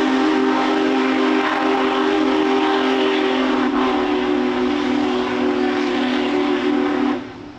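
Locomotive whistle sounding one long, steady blast, a chord of several low tones, over the noise of the train rolling across a steel truss bridge; it cuts off suddenly near the end.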